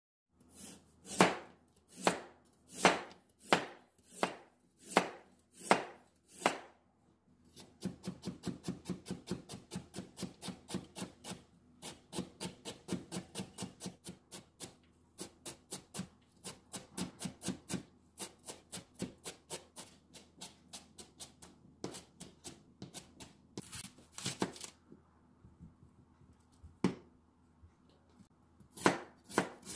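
Kitchen knife chopping vegetables on a plastic cutting board. Slow single cuts first, then rapid mincing of carrot at about five strokes a second, and a few loud cuts into a whole onion near the end.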